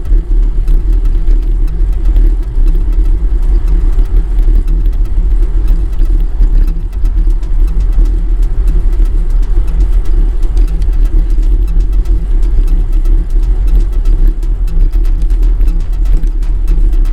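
Steady, loud wind rumble on the microphone of a moving road bike riding in a crosswind.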